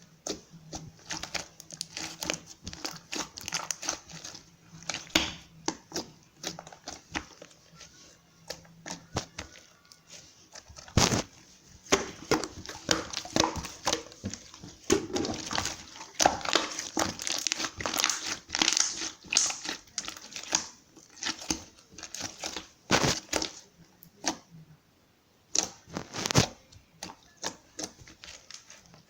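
Irregular crinkling and rustling with many sharp clicks, thicker and louder from about eleven seconds in, easing off near the end.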